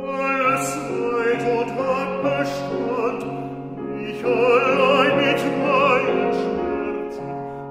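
Bass-baritone voice singing a German art song with piano accompaniment. The voice comes in loudly at the start over sustained piano chords and holds long notes with a wide vibrato. It eases off near the end.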